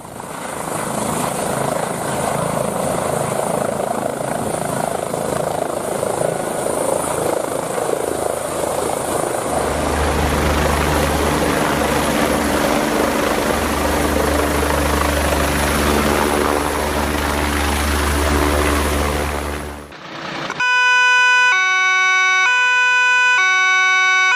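Helicopter running, with a steady high whine over the rotor and engine noise; about halfway through a deep low rumble grows in. It cuts off near the end, and an alternating two-tone siren begins.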